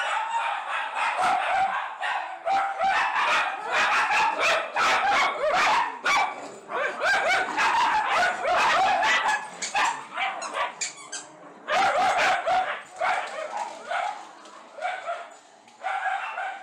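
Miniature schnauzers barking and yapping in quick barks during play, with a brief pause about eleven seconds in.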